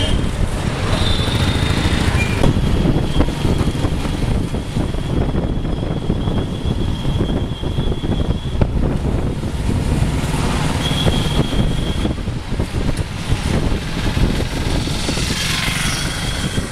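Steady rumble of engine and road noise from a vehicle driving through dense city traffic, with motorcycles and auto-rickshaws around it. A thin, high steady tone sounds over the rumble several times, once for several seconds.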